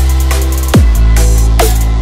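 Loud electronic background music: a deep, sustained bass with heavy drum hits that sweep down in pitch, over fast high ticks.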